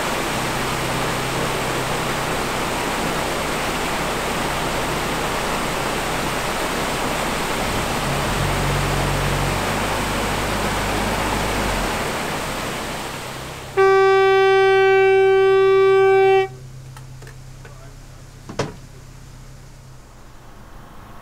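Water gushing through the gate paddles of a canal lock into the chamber, fading out about thirteen seconds in. Then a horn sounds once, a single steady blast of about three seconds, followed a couple of seconds later by one sharp click.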